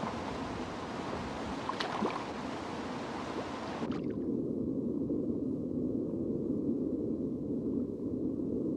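Rushing river rapids, a steady hiss of fast water, with a couple of brief sharp sounds about two seconds in. About four seconds in the sound cuts abruptly to a muffled, low rush of the same current as heard underwater.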